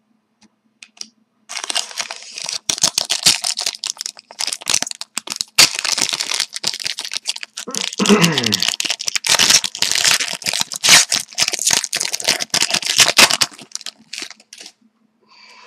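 Hockey card pack wrapper being torn open and crinkled by hand: a dense crackling that starts about a second and a half in and goes on for about twelve seconds, dying away near the end.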